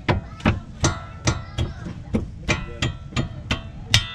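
Hammer blows on the steel parts of a car's rear suspension during a coilover install: about eleven sharp metallic strikes, roughly three a second, each ringing briefly. The last strike is the loudest.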